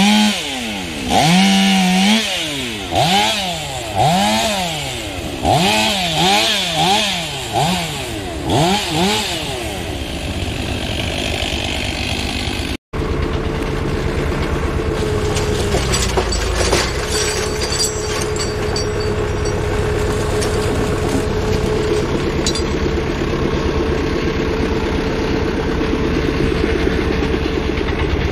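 Stihl MS 500i chainsaw revved up and down repeatedly, about once a second, for some ten seconds. After a break it gives way to an engine running steadily with a constant whine and a few light clinks.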